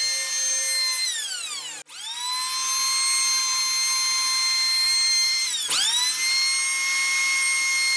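Wen 6534 8-amp electric hand planer running with a high, steady motor whine. It winds down about a second in, starts up again just under two seconds in, and dips briefly in pitch near six seconds before running steady again.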